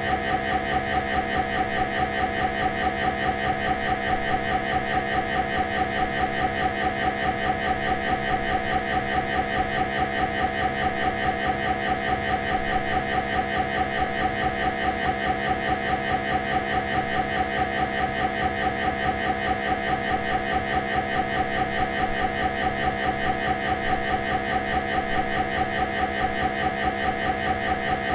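A steady, buzzing tone driving a resonance plate, the frequency that sets the plate vibrating into its pattern, with a rapid, even pulsing throughout.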